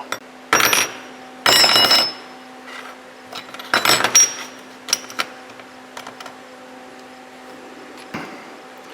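Steel parts clanking and ringing as they are handled, with three louder clanks in the first half and lighter clicks after. A steady hum runs underneath.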